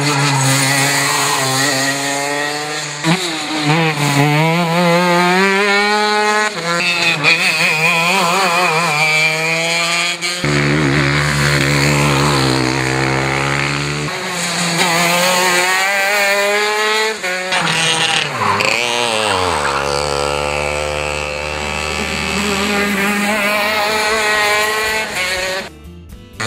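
Racing kart engines revving hard as karts accelerate past, the high engine note repeatedly climbing and dropping as they go through the gears and lift for corners; the sound jumps abruptly several times as one kart gives way to another.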